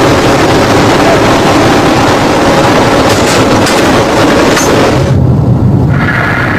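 Loud, steady roar of the AC-130 gunship's four Allison turboprop engines heard inside the aircraft, with a few sharp metallic clicks. About five seconds in, the sound cuts abruptly to a lower hum.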